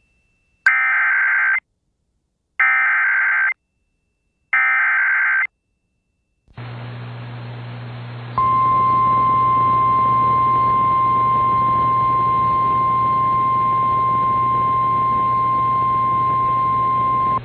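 NOAA Weather Radio emergency alert for a severe thunderstorm warning: three one-second bursts of EAS SAME header data tones, each a harsh digital screech, come about a second apart. After a short silence, radio hiss and a low hum come up, and about 8 seconds in the steady single-pitch 1050 Hz warning alarm tone starts and holds unchanged.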